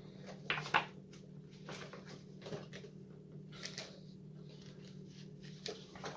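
Paper pages of a plastic model kit's instruction booklet being turned and handled, a string of short crisp rustles, the loudest a little under a second in, over a faint steady low hum.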